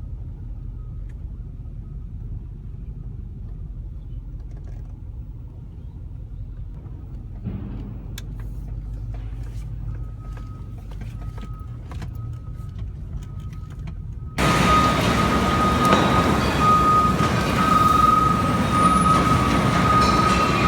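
Steady low rumble of a car, heard from inside the cabin, with a few faint clicks. About two-thirds of the way through, the sound cuts abruptly to a much louder, noisy background with a steady high whine running through it.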